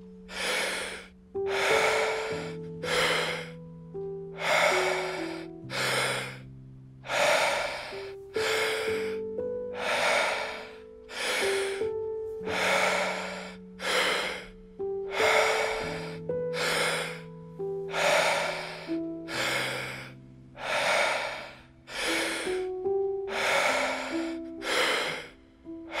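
Paced, forceful deep breathing of the Wim Hof method, a loud in-breath then out-breath about every two and a half seconds, over soft background music of long held notes.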